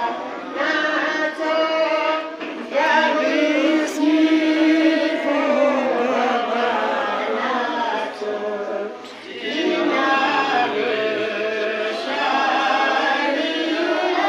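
A boy chanting a devotional poem into a microphone, with long drawn-out sung notes and a brief pause about nine seconds in.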